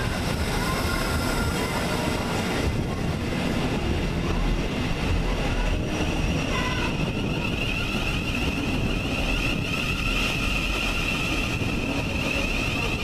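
Thameslink electric multiple unit running along the platform with a continuous rumble of wheels and running gear, and a steady high electric whine that grows stronger about halfway through.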